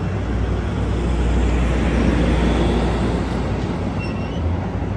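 Amtrak Capitol Corridor bilevel passenger cars rolling past on the rails as the train pulls out of the station: a steady, loud rumble of wheels on track, ending with the rear cab car going by.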